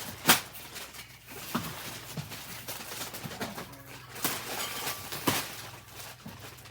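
Wrapping paper and packaging rustling and crinkling as gifts are handled and unwrapped, with sharp crackles, the loudest just after the start.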